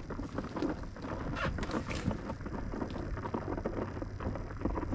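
Wind rumbling on the microphone, with scattered small clicks and rustles throughout.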